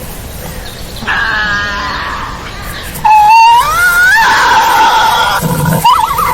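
Tasmanian devil screeching: a wavering cry about a second in, then a louder call that rises in pitch and holds a high, strained screech, with another short rising cry near the end.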